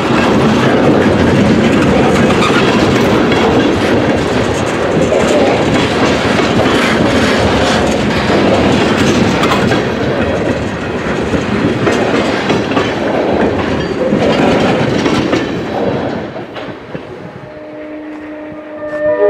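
Loaded propane tank cars of a freight train rolling past close by: a steady rumble of steel wheels on rail with clicks over the rail joints. About three-quarters of the way through the rumble falls away, and near the end a diesel locomotive horn starts to blow, several tones at once.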